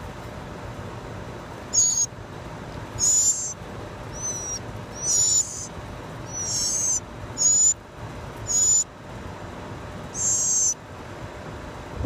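Blue jay nestlings begging for food: about eight short, high-pitched calls, each under a second, coming every second or so.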